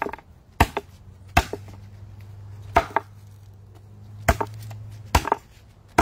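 A heavy knife chopping through mutton snapper on a wooden cutting board: five sharp chops at uneven intervals, roughly one a second, with a few lighter knocks between them.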